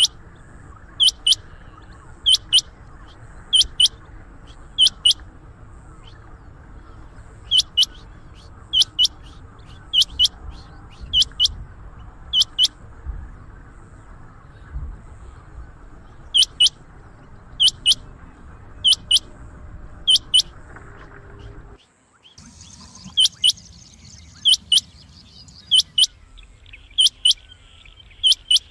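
Rain quail calling: sharp, high double notes repeated about once a second, with a couple of short pauses. About two thirds in, the background changes abruptly and a high, steady insect buzz sounds behind the calls.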